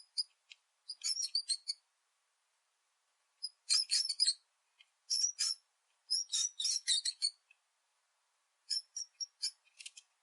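Mouse squeaking: quick runs of short, high-pitched squeaks in five or six clusters, with dead silence between them.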